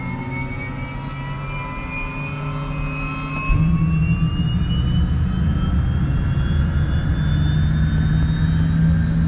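Helicopter turbine engine whining, the pitch rising steadily as it spools up to power, with the low rotor noise jumping louder about three and a half seconds in.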